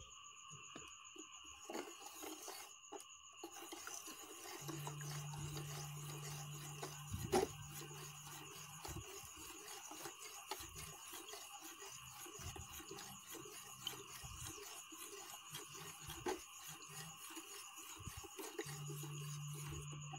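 Plastic spoon stirring urea into aqua regia in a plastic tub: faint scraping and small clicks against the sides, with one sharper click about seven seconds in. A faint steady whine and a low hum that comes and goes sit in the background.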